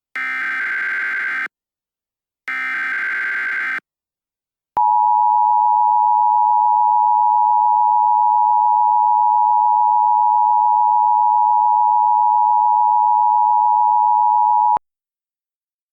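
Emergency Alert System alert tones: the last two of three data bursts of the SAME digital header, each about a second long and a second apart, then the EAS two-tone attention signal (853 and 960 Hz) held steady for about ten seconds before cutting off abruptly.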